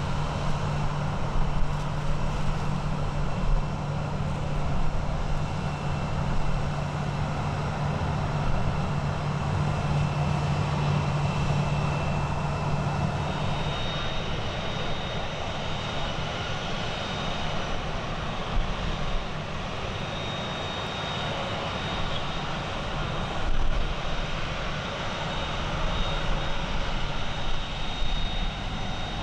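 Jet airliner engines running at idle: a steady rumble with a high thin whine. About halfway through, the low hum drops away and the whine shifts higher and steadier.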